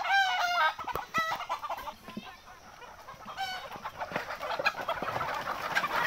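A flock of desi chickens clucking and calling, with a rooster crowing at the start and scattered squawks from the hens and roosters afterwards.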